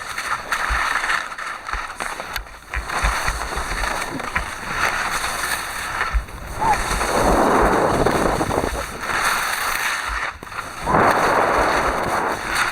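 Wind buffeting the camera's microphone while skiing downhill: a loud, uneven rush with low rumbling thumps, swelling in gusts around the middle and again near the end.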